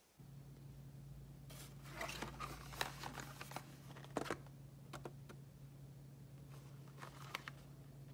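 Faint handling of cardboard boxes of coffee capsules: scattered rustles, light taps and clicks, busiest in the first half and again briefly near the end, over a steady low hum.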